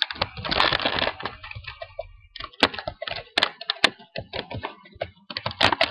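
Computer keyboard typing: a run of sharp, irregularly spaced keystroke clicks, after a short rushing noise in the first second.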